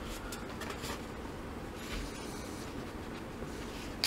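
Pages of a paperback book rustling as it is flexed and opened by hand: a few soft, brief paper rustles over a steady low hiss.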